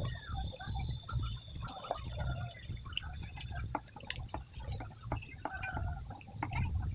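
Water dripping and trickling in shallow water, with scattered small splashes and clicks over a steady, faint high-pitched whine.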